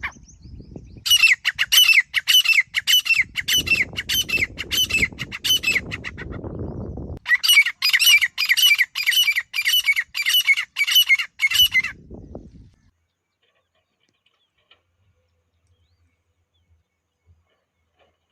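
Grey francolin calling: two bouts of loud, harsh notes repeated about twice a second, each bout lasting about five seconds. A low rumble runs under the first bout.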